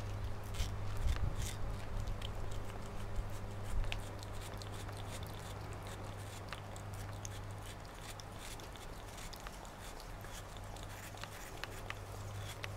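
A cat licking and chewing a wedge of watermelon held in a hand: a run of small wet clicks, louder and busier in the first few seconds, over a steady low hum.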